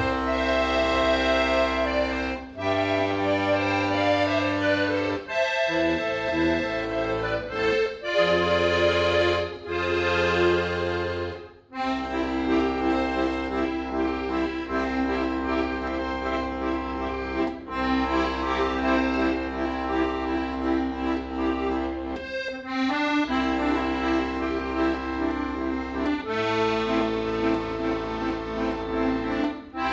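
Accordion playing an instrumental passage of a song: held chords over a steady bass line, the harmony changing every few seconds, with brief breaks about twelve and twenty-two seconds in.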